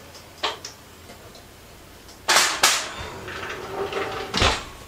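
A baking dish set into an oven: two sharp clacks a little after two seconds in as it meets the metal oven rack, a short rattle, then the oven door pushed shut with a thump near the end.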